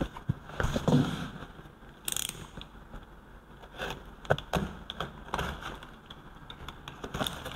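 A parcel being opened by hand: irregular clicks, scrapes and rustles of the packaging.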